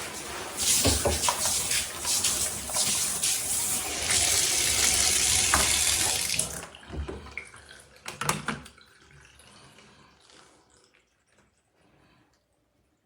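Water running from a handheld sprayer hose attached to a tub faucet, splashing into a bathtub, then shut off about halfway through, followed by a few knocks.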